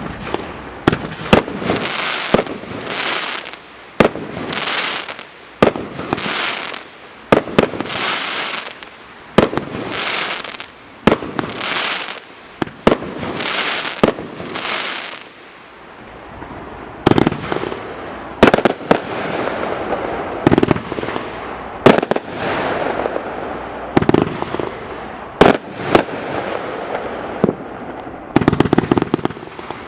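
Total FX Caged Tiger Pro firework cake firing its 30mm shots in a five-across fan: each shot is a sharp report followed by a short hissing burst, about one a second at first. Further in, the shots come quicker and denser, ending in a rapid string of pops.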